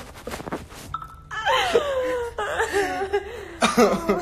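Two people laughing together, with high-pitched, drawn-out vocalising that starts about a second in, its pitch sliding downward.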